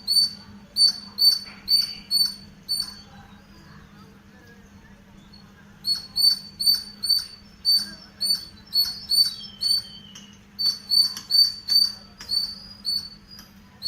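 Squirrel chirping: a rhythmic series of short, sharp, high-pitched chirps at about two or three a second. It breaks off for about three seconds and starts again about six seconds in.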